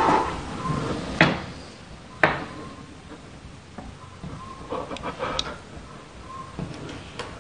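Two sharp knocks on a door about a second apart, followed by a few fainter taps.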